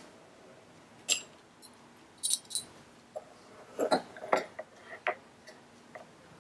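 A metal measuring spoon clinking and scraping against a ceramic bowl as sugar is scooped out and tipped onto flour: a scatter of short, sharp clinks, several of them close together about four seconds in.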